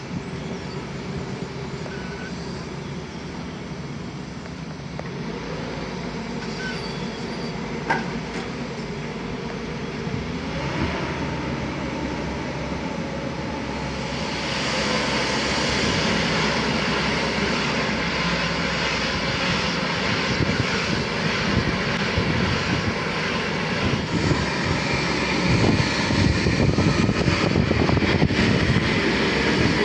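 Klemm KR805-3G drilling rig running with a steady machine noise. About halfway through it grows louder and harsher, and near the end it rattles more.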